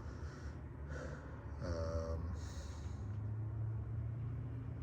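A man breathing audibly through his nose in short puffs, with a brief hummed vocal sound about two seconds in, over a steady low room hum.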